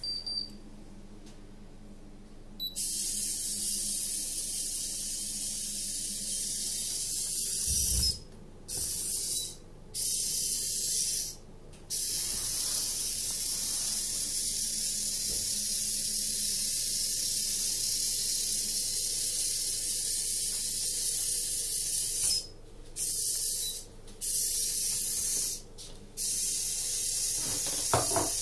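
Small tracked robot's electric drive motors running with a steady high hiss, starting a few seconds in and cutting out briefly about six times before stopping near the end.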